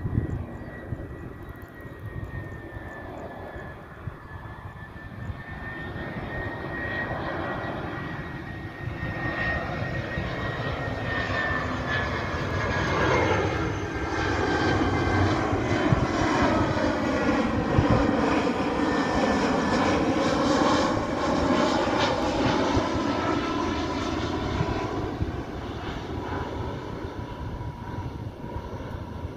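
Airbus A320-214 jet airliner on landing approach flying low overhead, its CFM56 turbofan engines giving a high whine that slowly drops in pitch as it passes. A rushing roar swells to its loudest about halfway through, then fades as the plane moves away.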